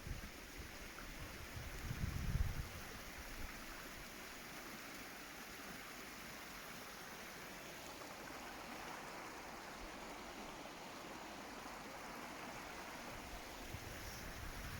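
Steady rushing of a woodland stream, with a brief low rumble about two seconds in.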